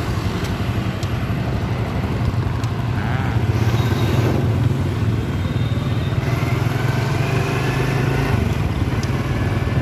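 Motorbike engine running steadily at riding speed, a continuous low hum under road noise, with street traffic around it.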